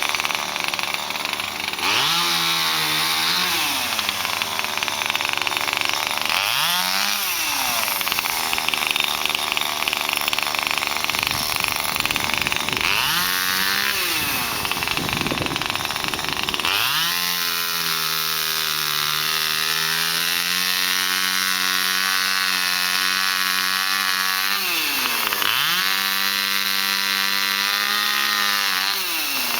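Chainsaw cutting through the wood of a fallen peppermint tree. The engine runs at high revs, drops in pitch each time the chain bites into the log and climbs back as it eases off, several times over, with one long steady cut at lower revs through the middle.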